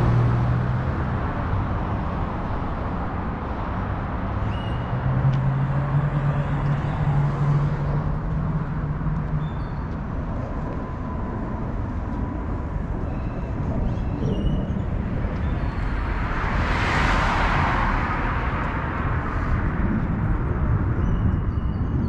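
Street traffic: car and bus engines running in a steady low rumble. A louder rush of noise swells and fades about sixteen seconds in, like a vehicle going past.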